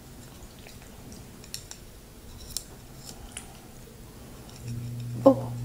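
Small clicks of wooden chopsticks working through a bowl of creamy egg noodles. A low steady hum starts about a second before the end.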